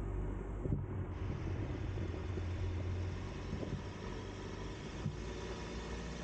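Ford Transit 4x4 van driving on a snow-covered road: a steady low engine rumble under an even hiss of tyres on packed snow.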